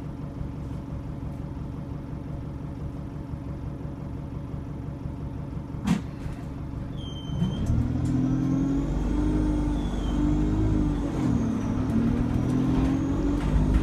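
Single-deck bus's diesel engine heard from inside the saloon, idling steadily. A sharp click comes about six seconds in and a short beep a second later. The engine then pulls away with rising revs, easing off briefly around eleven seconds before picking up again.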